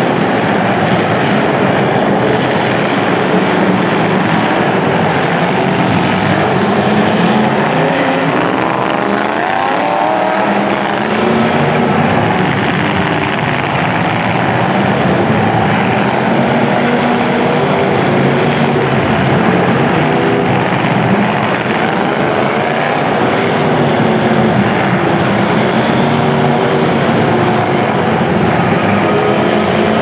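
Several demolition derby cars' engines running hard and revving, their pitches rising and falling over one another with no break.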